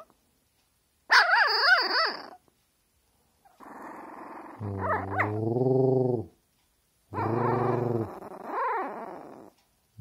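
A small puppy giving a high, wavering whining howl about a second in, then lower growling sounds twice in the second half.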